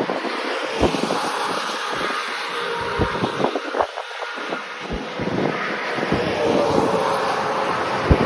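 Steady vehicle and road noise mixed with wind buffeting the microphone, with short low thumps every second or two.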